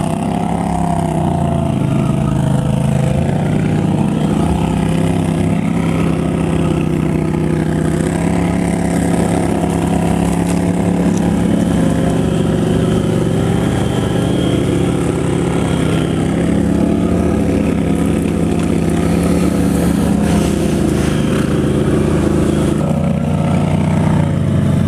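Can-Am Renegade ATV engine running steadily under moderate throttle, heard close up from on board, its pitch rising and dipping a little as the rider eases on and off the gas.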